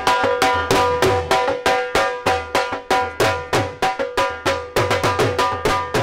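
Dhol drum beaten in a fast, steady dance rhythm, about four strokes a second, with ringing high strokes over a low boom.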